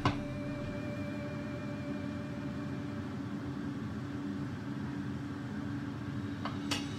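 Steady low mechanical hum, with a sharp knock at the very start and a couple of brief clicks near the end.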